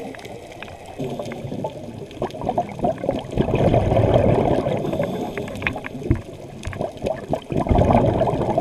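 Scuba diver's exhaled air bubbling out of the regulator, heard muffled through an underwater camera housing; the bubbling surges twice, in the middle and near the end.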